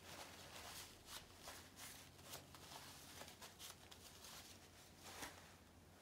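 Faint, irregular crinkling and rustling of plastic cling film being handled, with one louder crackle about five seconds in.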